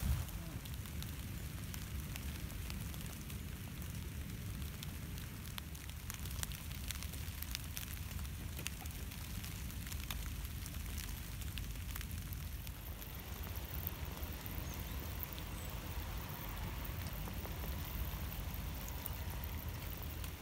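Steady rain falling, with scattered sharp ticks of single drops over a low rumble.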